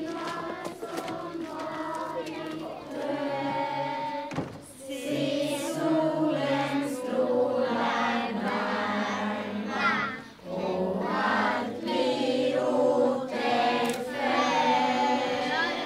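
A group of children and adults singing a song together in chorus, in phrases with two brief breaks between them.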